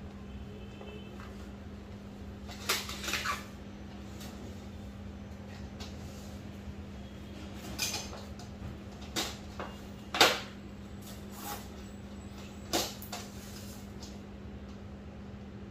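Folded aluminium projector-screen frame being handled on a tiled floor: scattered metal knocks and clinks, the loudest about ten seconds in, over a steady low hum.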